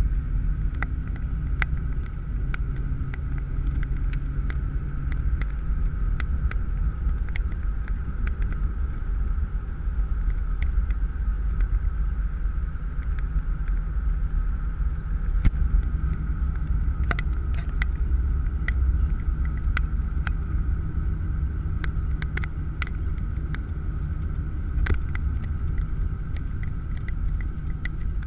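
Steady low engine and road rumble heard inside the cab of a moving car, with scattered small sharp ticks and rattles, more of them in the second half.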